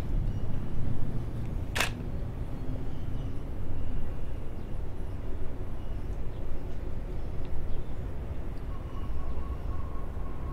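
Steady low outdoor rumble with one sharp click about two seconds in; a faint steady tone comes in near the end.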